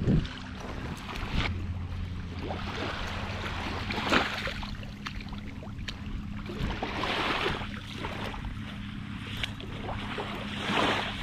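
Footsteps wading through shallow water along a sandy shore, each step a sloshing splash, about five in all, the loudest near the start and near the end. A steady low hum runs underneath.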